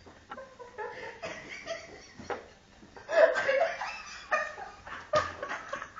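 People laughing in fits and bursts, the loudest burst about three seconds in.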